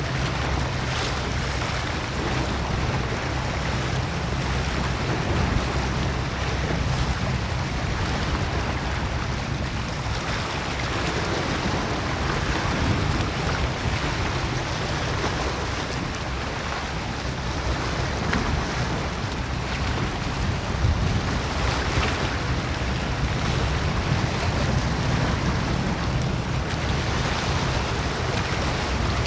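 Steady wind rumbling on the microphone over the even wash of the sea.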